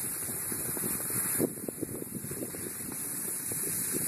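Steady wind rushing over the microphone during a downhill ski run, with irregular scraping and crunching of skis on snow.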